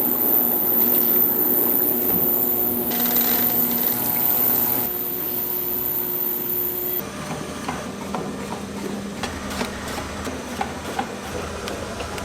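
Processing machinery running with a steady high whine and hum. About seven seconds in the sound changes to a lower hum with a rapid clatter of small knocks.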